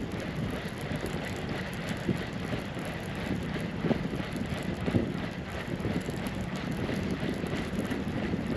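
Wind buffeting the microphone over a steady low rumble, with faint ticking and a few soft knocks as a multiplier fishing reel is slowly wound in.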